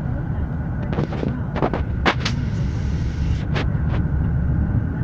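A car driving through a flooded dirt road: a steady low rumble of the car with muddy water splashing up along its side. Several sharp slaps and knocks come in a cluster in the middle and once more later, as the water and mud strike the car's body.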